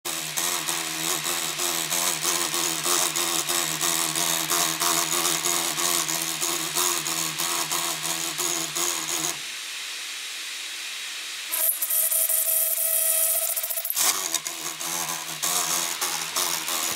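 MSI GP66 Leopard laptop's cooling fan running with a loud grinding rattle. About nine seconds in it drops to a smoother whir, then shifts to a squealing whine before the grinding returns near the end. The uploader takes this for a faulty right fan that jams, possibly with loosened blades.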